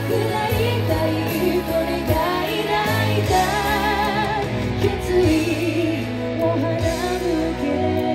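A woman singing into a microphone, holding long wavering notes with vibrato, over instrumental accompaniment played through stage PA speakers.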